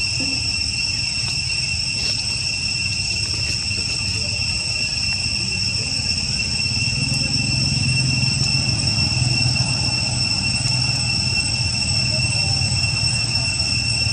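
Steady high-pitched insect chorus. Under it runs a low rumble that grows louder about halfway through.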